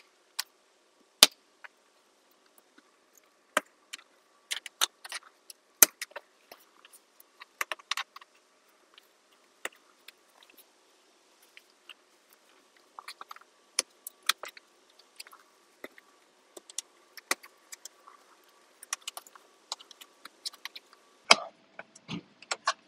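Plastic interior trim panels and push clips on a Tesla Model 3 being prised loose with a plastic pry tool: scattered sharp clicks, snaps and knocks of plastic on plastic, with a faint steady tone underneath.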